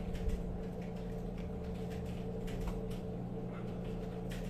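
Faint, scattered clicks and scrapes of a Phillips screwdriver driving a small screw into a receipt printer's release-button mechanism, over a steady low hum.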